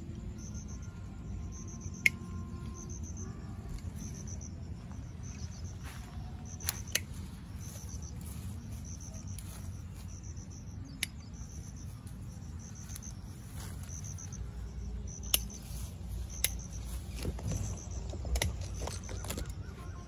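Hand pruning shears snipping side shoots off shisham saplings, with a sharp snip every few seconds and leaves rustling as the branches are handled. Crickets chirp steadily in quick, even pulses underneath.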